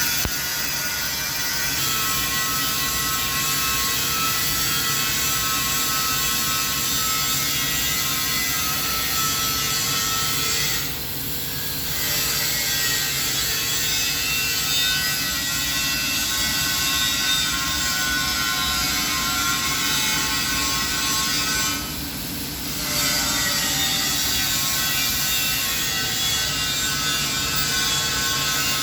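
Steady hissing buzz of a TIG welding arc laying the argon-shielded root pass on a carbon-steel pipe joint. It drops away briefly about 11 seconds in and again about 22 seconds in.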